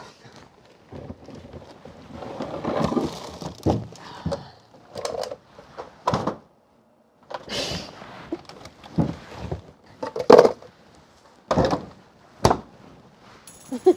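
Food containers and frozen packages knocking, thudding and sliding against each other and the shelves as a crammed fridge-freezer is rearranged: a dozen or so sharp knocks with some rustling and scraping between them.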